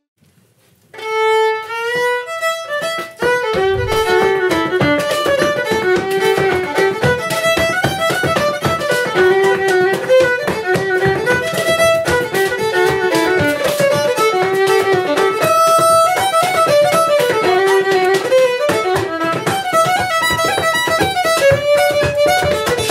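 A fiddle playing a lively dance tune. From about three seconds in, rapid rhythmic taps of dance steps in leather shoes on a flagstone floor run under the tune.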